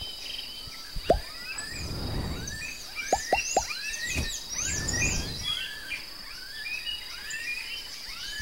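A chorus of birds calling, with many short repeated chirps and higher whistled notes, over a steady high-pitched insect drone. A few sharp downward-sliding calls stand out, the loudest about a second in, and there are two soft swells of low noise.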